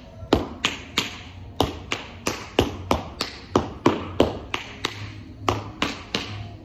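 Tap shoes' metal taps striking a wooden studio floor as a tap combination of heel and toe beats is danced, sharp taps at about three a second in a steady rhythm.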